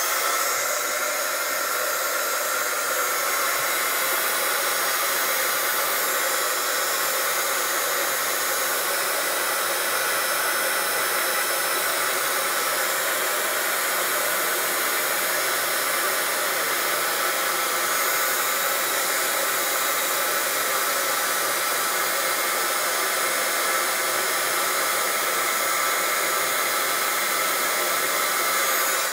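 Craft embossing heat gun running steadily, blowing hot air to melt embossing powder on a chipboard letter; it cuts off abruptly near the end.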